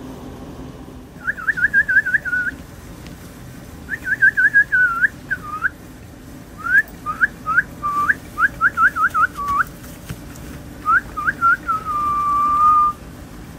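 A person whistling: several bursts of quick, short rising and falling notes, ending with one long held note.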